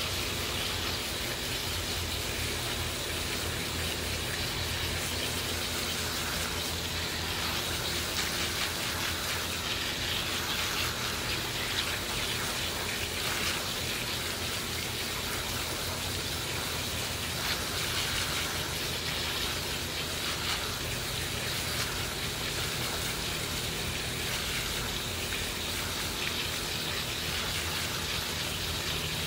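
Garden hose spray nozzle jetting a steady hiss of water against the pleats of an Intex paper pool filter cartridge, washing the dirt out of it.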